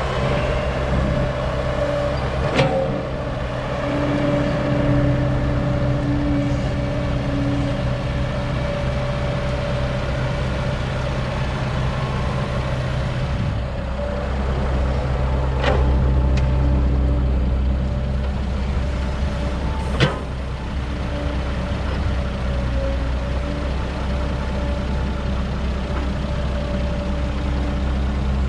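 Diesel engine of an older Caterpillar excavator running under load while it digs and loads soil into a dump truck, swelling and easing with the work. Three sharp knocks stand out over the engine: one early, and two about four seconds apart in the second half.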